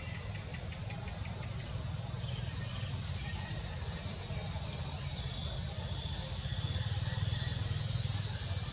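Outdoor ambience: a steady high-pitched drone of insects over a low steady rumble, with a brief rapid chirping trill about four seconds in.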